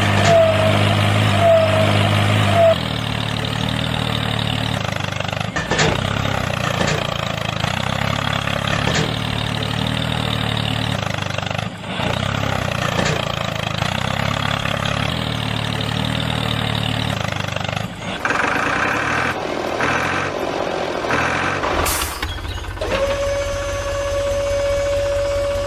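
An engine running steadily, its low pitch shifting a few times. Near the end comes a sharp click, followed by a steady whine.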